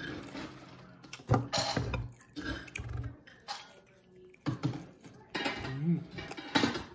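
A metal fork clinking and scraping against a plate of food, in several sharp clatters, the loudest about a second in.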